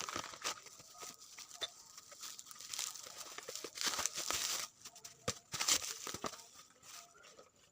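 Product packaging being torn and crinkled open by hand: irregular rustling, tearing and clicking, busiest about four seconds in and again near six seconds.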